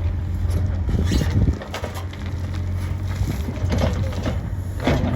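Cat 432F2 backhoe loader's diesel engine running, dropping in level about a second and a half in and coming back up near the end, with scattered clicks and knocks over it.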